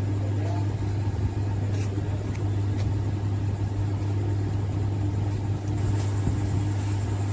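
A steady low hum, with a few faint short clicks about two seconds in and again near six seconds.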